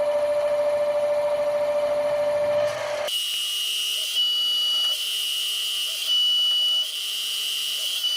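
Metal lathe turning a steel part with an indexable carbide insert, a steady machining whine that switches abruptly to a higher-pitched whine about three seconds in. The insert tip is cutting broken and throwing sparks.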